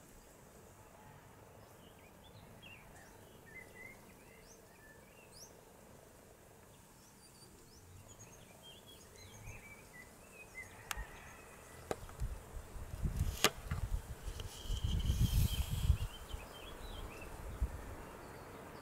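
Faint, scattered high chirps of small birds, then a few sharp clicks and a burst of low rumbling thumps about twelve to sixteen seconds in, the loudest part: the camera being handled and moved.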